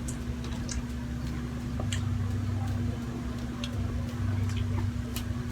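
Eating sounds: scattered light clicks and mouth noises from someone taking the last bites of a meal. A steady low hum runs underneath.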